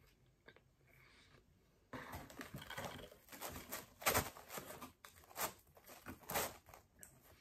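A slice of cheeseburger pizza being pulled apart by hand: short rustling tears of crust and topping, starting about two seconds in.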